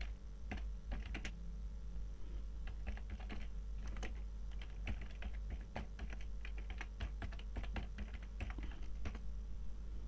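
Typing on a computer keyboard: a quick, irregular run of key clicks over a faint steady hum.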